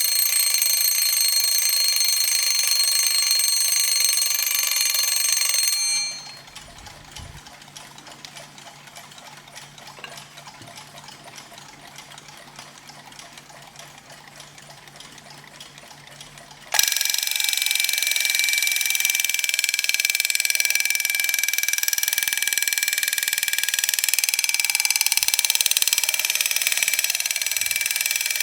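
An alarm clock ringing stops abruptly about six seconds in. After a quiet gap of about ten seconds, a second alarm clock starts ringing suddenly and rings steadily on.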